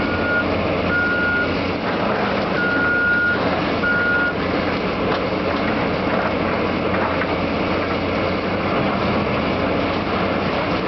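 Heavy diesel demolition machinery running steadily, with a backup alarm beeping four times in the first few seconds before it stops.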